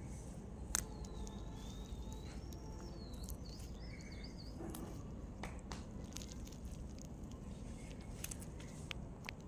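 Star tortoise biting and chewing a raw green vegetable: a few sharp, crisp bites, the loudest about a second in and more near the end, over steady outdoor background noise. A bird chirps in the background early on.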